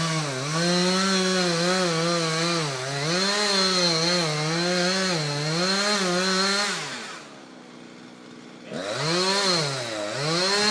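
Chainsaw cutting into a tree, its engine pitch sagging and recovering again and again under load. About seven seconds in it drops back to a quiet idle, then revs up and down again near the end.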